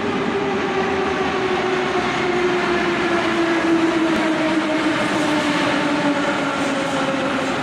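81-717-type metro train pulling into an underground station. Its traction motors whine in a slowly falling pitch as it slows, over a steady rumble of wheels on rail.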